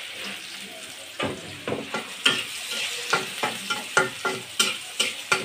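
Sliced onions sizzling in hot oil in a wok. From about a second in, a spatula scrapes and knocks against the wok as they are stirred, two or three strokes a second.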